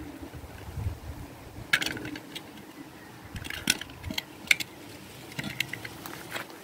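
Prickly pear fruits dropping from a plastic bag into a steel bowl: a few sharp clinks and knocks against the metal, scattered over several seconds, the loudest a little past the middle.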